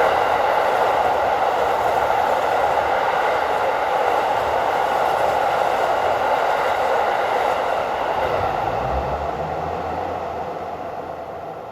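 Empty KiYa E195-series long-rail wagons rushing past at high speed: a steady rolling roar with no rail-joint clatter, fading slowly and then more quickly near the end as the train moves away.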